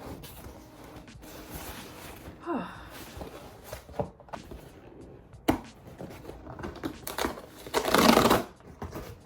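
A parcel being handled and opened: scattered knocks and taps with rustling of packaging, and a louder rustle about eight seconds in.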